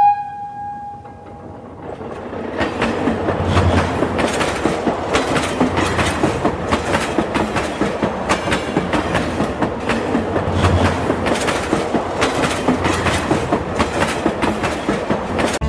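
A train's horn gives a short note at the start. Then the train runs past with its wheels clattering over the rail joints, a steady clickety-clack at about three beats a second.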